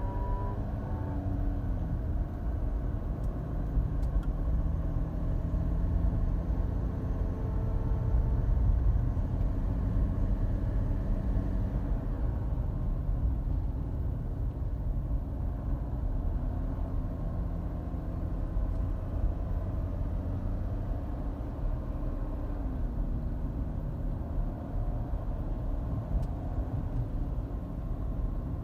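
Cabin sound of a 2012 Volkswagen Touareg TDI diesel driving at low speed: steady road and engine rumble, with faint whining tones that slide down in pitch in the first couple of seconds and come and go afterwards. The owner is chasing an intermittent metal-on-metal whine from the front passenger side whose cause is unknown.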